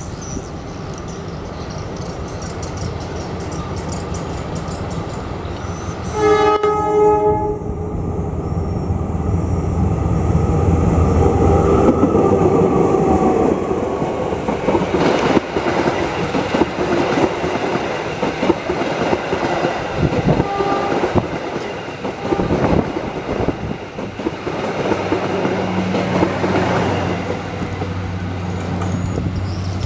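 KAI diesel-electric locomotive approaching with its engine drone growing louder, sounding its horn once, briefly, about six seconds in. It then passes close, and the passenger coaches rumble by with their wheels clacking over the rail joints.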